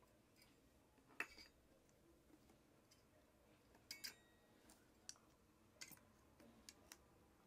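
Faint, scattered clicks and small handling noises of hands working a rubber tire on an electric scooter wheel, with a sharper click about a second in and two close together near the middle.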